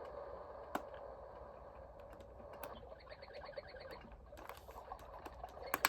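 Built-in nature-sound playback from a Timex T233G clock radio's small speaker: a soft wash of noise scattered with chirps and clicks, with a rapid trill about three seconds in. A sharp click sounds near the end.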